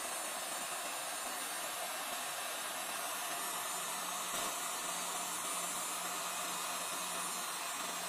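Electric heat gun running, a steady rush of blown air as it plays over wet epoxy resin to push the white resin into lacy ocean-foam cells.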